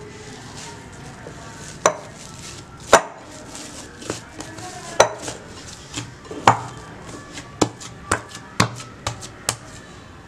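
Hands kneading risen wheat dough in a glass bowl, with about nine sharp, irregular knocks against the glass, the loudest about three seconds in.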